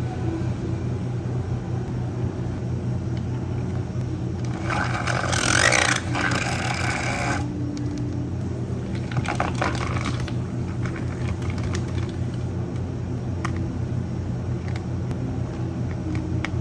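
Cafe counter work sounds over a steady low machine hum: a loud hissing, rushing burst lasting about two and a half seconds around the middle, then light clicks and knocks of utensils and cups.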